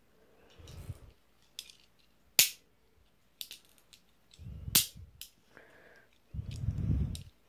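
Toy cap gun revolver snapping: two sharp cracks about two and a half seconds apart and a few lighter clicks, with low rustling from the gun being handled in between.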